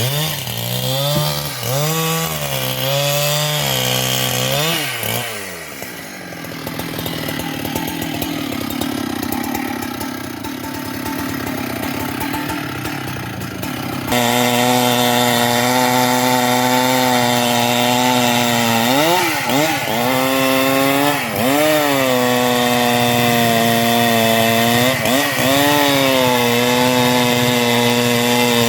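Large Husqvarna two-stroke chainsaw running at high revs and cutting wood, its engine note wavering as it works. About halfway through the sound changes abruptly to a steady high scream, which dips sharply a few times as the saw bogs under load in the cut.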